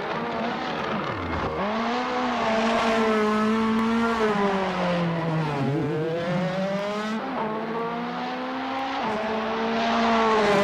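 Racing car engine running hard, its pitch rising and falling again and again as the revs climb and drop, with sudden drops in pitch about a second in and about seven seconds in.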